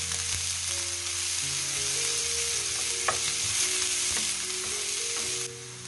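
Chopped onion and garlic sizzling in hot oil in a frying pan while being stirred with a wooden spoon: a steady sizzle with one light knock about three seconds in. The sizzle drops away sharply near the end.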